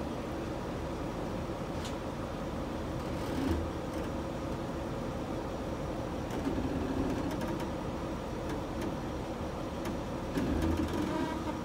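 Truck engines idling steadily, a continuous hum with a faint steady tone, swelling briefly about three and a half seconds in and again about ten and a half seconds in.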